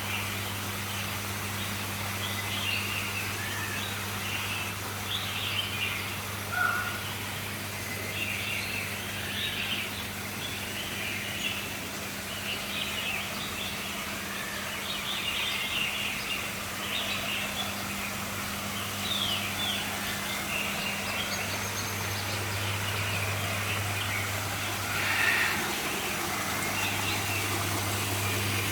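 Caged birds chirping in many short, high calls throughout, over a steady low hum.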